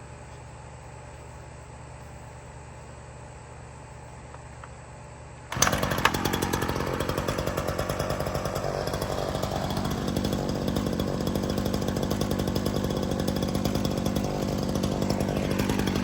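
Ryobi RY3716 37cc two-stroke chainsaw starting suddenly about five and a half seconds in, then running steadily. Before it starts there is only a faint steady low hum.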